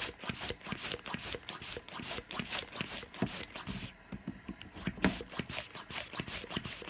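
Hand balloon pump being worked fast, blowing quick puffs of air at a fidget spinner to keep it spinning: about three hissing puffs a second with light plastic knocks of the pump stroke. The pumping stops for about a second some four seconds in, then starts again.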